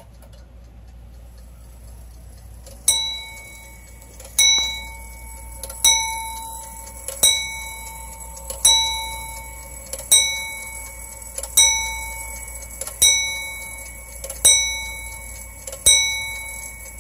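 Repeater of a c.1830 Viner London bracket clock sounding the hour on its dome bell after the repeat button is pressed. The hammer strikes the bell ten times at an even pace, about one strike every second and a half, starting about three seconds in, and each strike rings on before the next.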